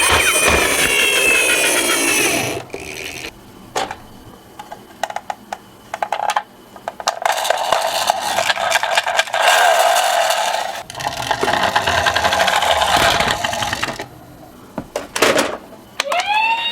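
Toy minicar's electronic siren sliding down and fading out, then rattling and clicking of small toy cars rolling and being handled on a slope. A toy siren tone starts again near the end.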